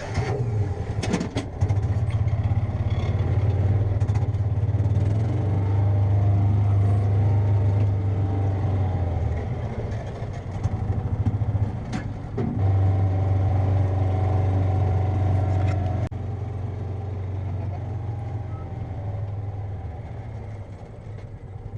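A vehicle engine running steadily. It eases off around ten seconds in and picks back up a couple of seconds later, with a few knocks and rattles.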